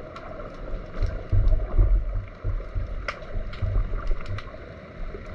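Underwater sound picked up through a submerged camera's housing: water moving against the housing gives an irregular low thumping rumble, with scattered sharp clicks.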